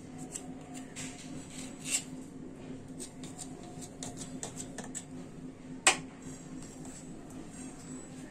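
Serrated knife cutting through soft dough on a marble slab: scattered light clicks and taps of the blade against the stone, with one sharper click about six seconds in, over a faint steady hum.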